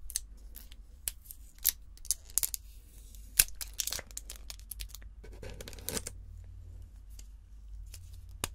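Thin wrapping being torn and peeled off a small slim cosmetic item: crinkling and crackling with sharp clicks, densest about three to four seconds in and again around five to six seconds.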